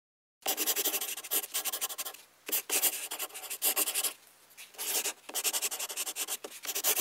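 Pencil scratching quickly over paper in dense sketching strokes: a drawing sound effect for a logo being sketched. It comes in several runs of rapid strokes, with short pauses about two and four seconds in.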